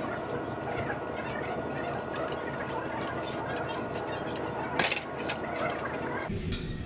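Steady gym room noise with a faint hum during a barbell bench press, and a short metallic clank about five seconds in as the loaded barbell is set back on the rack hooks.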